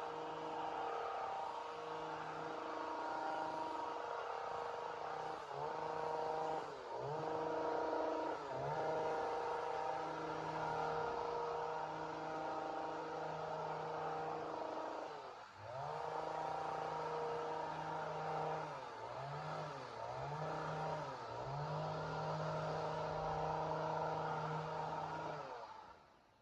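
Two-stroke chainsaw running at high revs, its pitch dropping briefly and climbing back several times as it is throttled or loaded, then cutting off suddenly near the end.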